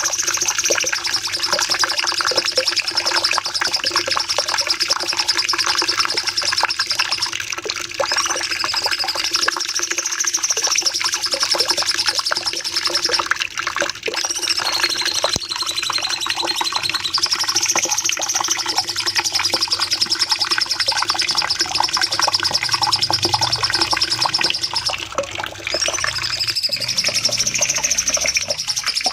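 Cucak cungkok songbird singing a long, unbroken 'nembak' phrase: a fast, dense stream of high chattering notes whose top line wavers up and down, over a steady low hum.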